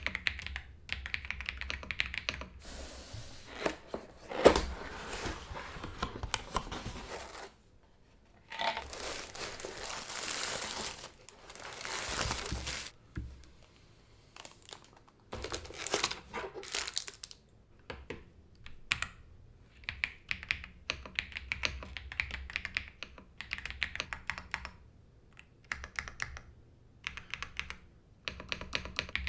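Unboxing of a mechanical keyboard: packaging rustling, crinkling and tearing through the first half, then rapid typing on the new creamy-sounding keyboard in the second half.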